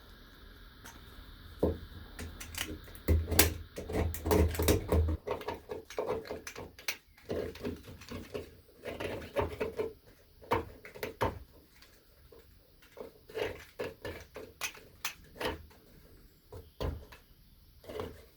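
Irregular clicks, scrapes and knocks of hand work on an old, thickly painted metal hinge, with a run of heavier knocks about three to five seconds in.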